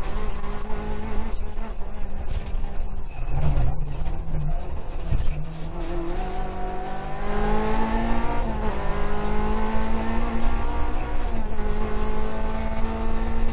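Rally car engine heard from inside the cockpit, driven hard on a stage: the revs drop a few seconds in as the driver lifts and changes gear, then climb steadily and hold high under full throttle.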